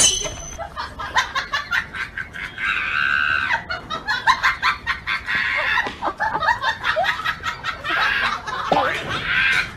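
Chickens squawking and clucking as they scuffle with a dog through a barred gate, with quick scuffling taps throughout and some human laughter.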